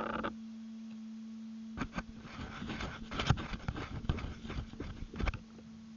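An RC truck's electric drive cuts off just after the start, leaving a steady low electrical hum, then irregular clicks, taps and scuffs from about two seconds in.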